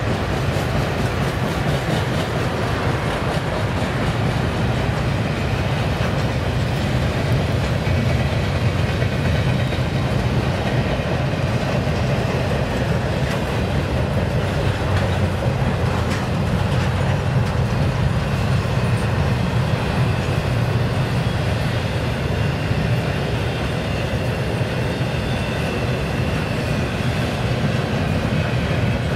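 Double-stack intermodal container train rolling past at speed: a steady low rumble of steel wheels on the rails, with the clack of wheels passing over rail joints.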